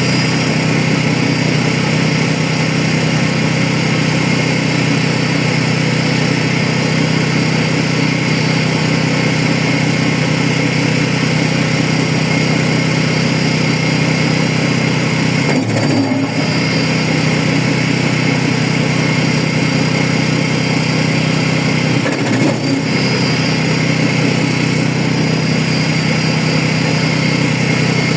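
Engine-driven wood chipper running steadily, its engine note briefly wavering about 16 and 22 seconds in.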